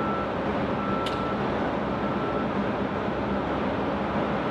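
Steady, loud machinery rush and hum from the aircraft carrier's hull alongside the pier. Over it, a short electronic beep repeats about once a second, and there is one brief tick about a second in.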